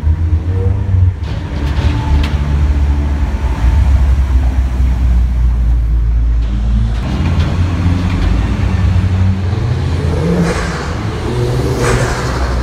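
Car engines rumbling and revving as a line of Ford cars drives through a concrete tunnel, with revs climbing about ten seconds in and again near the end.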